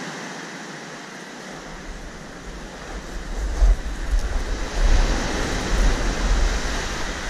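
Surf breaking and washing up a gravel beach, a steady rush of water. From about a second and a half in, gusts of wind buffet the microphone with a low rumble that comes and goes and is the loudest part.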